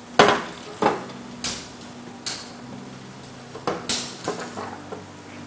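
Dishes and utensils being handled on a kitchen counter: a string of separate clinks and knocks, the loudest about a quarter of a second in and a quick cluster near the end. A faint steady low hum runs underneath.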